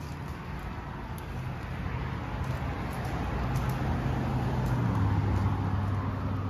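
Outdoor background noise with a low, steady motor drone underneath, growing louder and dropping slightly in pitch about five seconds in.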